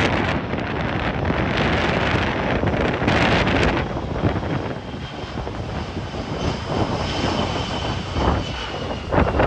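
Jet engines of a twin-engine Airbus A300 freighter passing low overhead on final approach: a steady rush with a faint whine that slowly falls in pitch over the second half. Gusty wind buffets the microphone.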